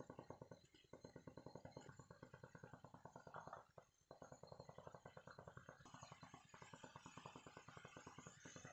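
Faint bubbling of soya chunks simmering in water in a nonstick wok, a fine even crackle. After a break about four seconds in, a light sizzle joins as the water cooks off.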